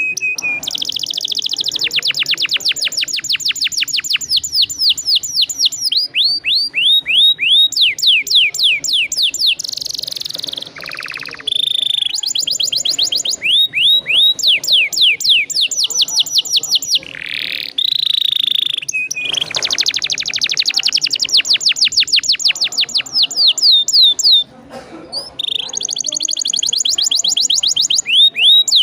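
Domestic canary singing a long rolling song: fast trills of rapidly repeated, downward-sweeping notes that change speed from phrase to phrase, broken by a few short pauses.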